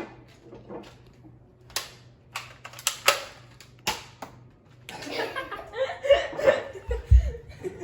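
Sharp plastic clicks and clacks of a Nerf blaster being primed and fired, about seven in quick succession over two or three seconds. They are followed by a stretch of rustling, voice-like sound and a low thump near the end.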